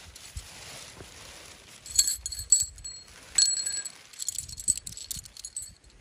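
Metal objects knocking and clinking together, each of the louder strikes ringing on briefly; the loudest come about two, two and a half and three and a half seconds in, followed by lighter clicks and rustling handling.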